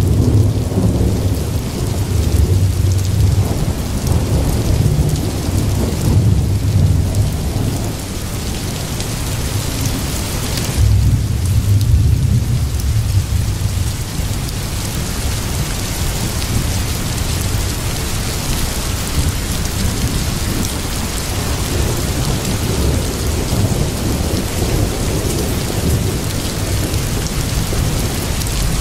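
Steady rain with rolling thunder: deep rumbles swell during the first seven seconds or so and again about eleven to fourteen seconds in, over a constant hiss of falling rain.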